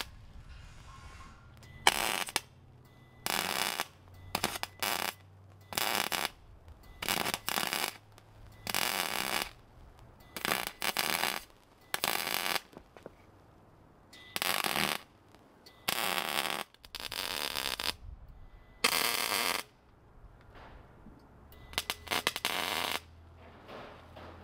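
Arc welder laying short welds on steel pipe, welding a collar onto a pipe for a gate hinge: about twenty crackling bursts, each under a second, with short pauses between them and a low hum in the gaps.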